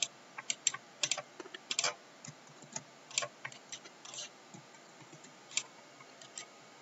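Computer keyboard keys clicking in short, irregular taps as a number, Return and a Ctrl+A shortcut are typed. The taps are bunched in the first two seconds and sparser after.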